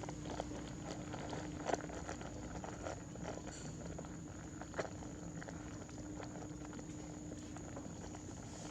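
Monkeys moving about: scattered light taps and rustles, the sharpest about two seconds in and again near five seconds, over a steady faint hum.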